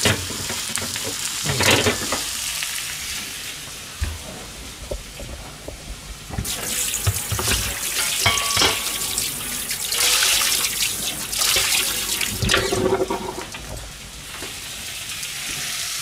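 Water running from a kitchen tap and splashing in the sink, coming in uneven surges from about six seconds in; before that, softer kitchen clatter.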